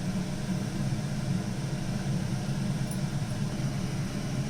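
A steady low machine hum, unchanging throughout, with no clear strokes or events.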